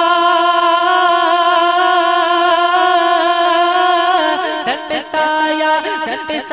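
Naat, Urdu devotional singing: a male voice holds one long steady note, then about four seconds in breaks into a wavering, ornamented run.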